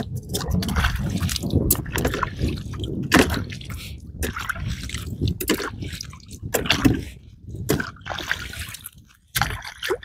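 Shallow seawater splashing and sloshing with irregular sharp clicks, as freshly gathered mussels and oysters are rinsed by hand.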